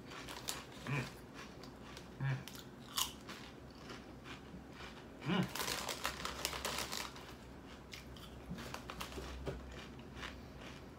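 A person biting and chewing crunchy Doritos tortilla chips: a few sharp crunches in the first three seconds, a louder run of crunching about five seconds in, then softer chewing.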